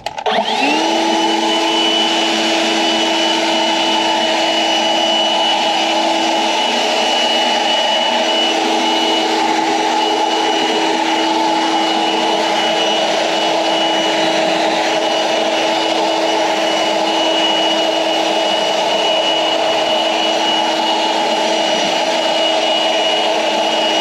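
EGO Power+ 56V LB7650 cordless leaf blower fitted with a spread nozzle, spinning up within the first second, then running steadily with a strong rush of air and an even whine.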